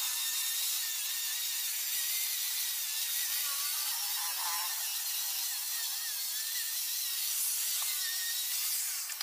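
Corded handheld electric sander running steadily with 60-grit sandpaper against a mahogany window frame, sanding down dried body filler, with a slightly wavering motor whine. It cuts off near the end.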